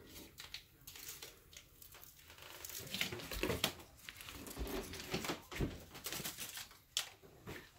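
Irregular rustling, crinkling and light clicks and knocks of hands at work in a kitchen, busier from about three seconds in.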